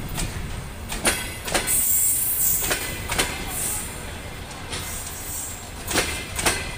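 Russian Railways passenger coaches of an arriving train rolling past: a steady rumble, with wheels knocking over the rail joints several times, and high-pitched wheel squeals twice around the middle as the train slows into the station.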